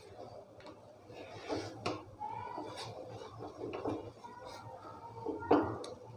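Silicone spatula stirring and scraping thick cashew paste around a nonstick pan: soft, irregular rubbing with a few light knocks against the pan, the loudest about five and a half seconds in. The paste is cooking in sugar syrup and is being stirred without a break so it doesn't stick as it thickens into kaju katli dough.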